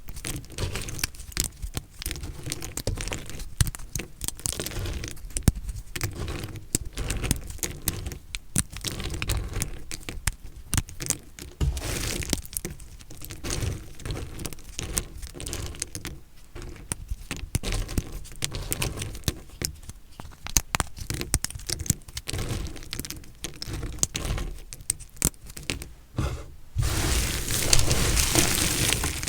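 Recycled soap being cut, crunching and cracking in a string of irregular crisp crackles as the blade goes through. Near the end the crunching turns denser and louder.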